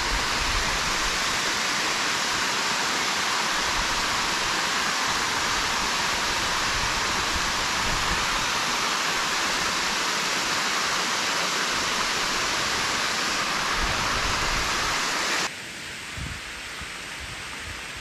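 Steady rushing hiss of water spilling down a concrete dam wall into a pool. It cuts off abruptly near the end, leaving a much quieter hiss.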